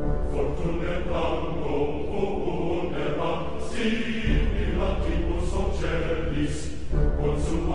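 Music with a choir chanting over a steady low beat and sharp high percussion strokes.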